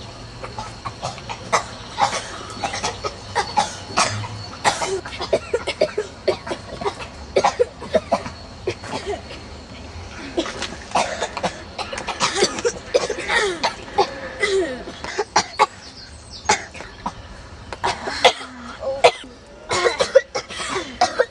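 Several children coughing again and again, one cough after another, with short voiced moans and cries in between. The coughing is play-acted, as by children pretending to be hurt.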